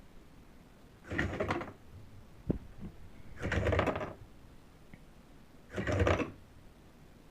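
Small robot's motors whirring in three short bursts, about two and a half seconds apart, with a single knock between the first two.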